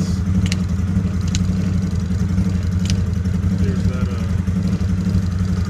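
CFMoto ZForce 800 EX side-by-side's 800 cc V-twin engine idling steadily, with a few short clicks over it.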